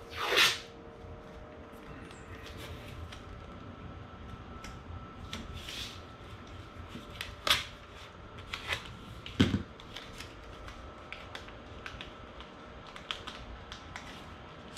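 Painter's tape being pulled off the roll, torn and pressed down around a plastic headlight: scattered crackling and light ticks, with a few sharper snaps in the middle.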